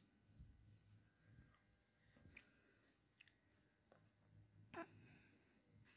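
A cricket chirping steadily, about six short pulses a second. A few faint clicks and a brief squeak from work on the circuit board can also be heard.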